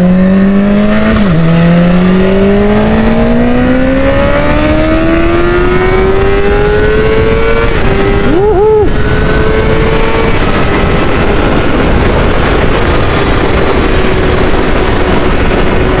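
Honda 600 cc inline-four motorcycle engine on its stock exhaust, accelerating hard: the engine note climbs steadily through the gears, with a quick upshift about a second in and another around halfway, then holds a high, steady pitch at speed, with steady wind noise.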